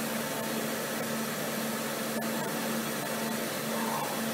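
Steady whirring hum of an old Fanuc 0M-controlled three-axis CNC milling machine as its axes return to the home (reference) position.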